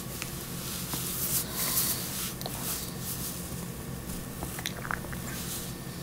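Hands fitting the dishwasher's sheet-metal controller cover back into place: rubbing and brushing noises with a few light clicks and taps of metal parts.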